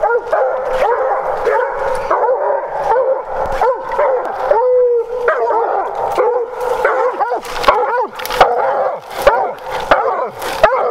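Coonhound baying at a treed raccoon: a rapid run of short chop barks, with one longer drawn-out bawl about four and a half seconds in. The steady treeing bark signals that the dog has the raccoon up a tree.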